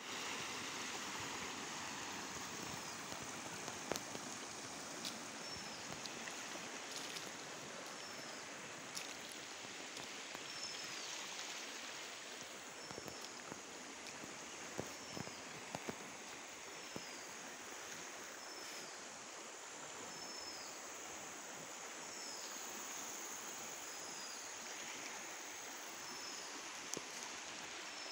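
Swollen, muddy floodwater rushing steadily in a river over its banks. Over it, a short high chirp that falls in pitch repeats every second or so.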